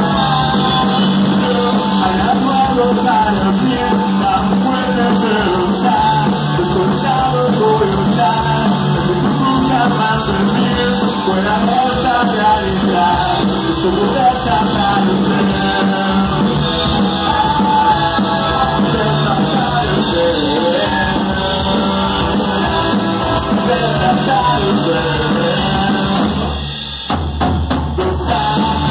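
Punk rock band playing live: electric guitar, bass guitar and drum kit under a singer's voice. Near the end the band drops out for a moment before coming back in.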